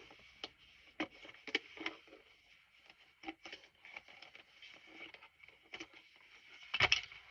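Handling of a pistol's packaging during an unboxing: scattered light clicks, taps and scrapes, with a louder clatter near the end.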